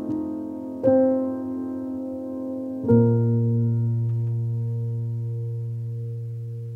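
Background piano music: chords struck about a second in and again about three seconds in, the last one left to ring and slowly fade.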